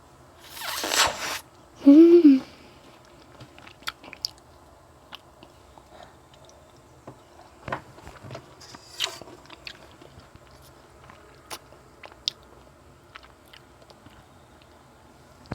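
Person eating juicy tangerine segments close to the microphone, with wet chewing and small scattered mouth clicks. A breathy rush about a second in and a short hummed 'mm' near two seconds stand out as the loudest moments.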